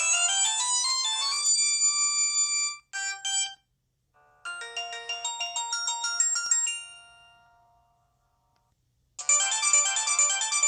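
Samsung GT-E2210b phone playing its built-in electronic ringtone melodies in turn. A rising arpeggio tune ends on a held chord about three seconds in and a short fragment follows. Another tune then fades out, and after a pause of about a second a new ringtone starts near the end.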